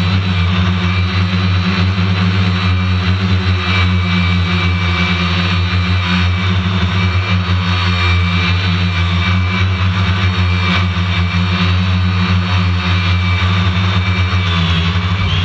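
An engine running steadily at an even pitch, with a faint high steady tone above it.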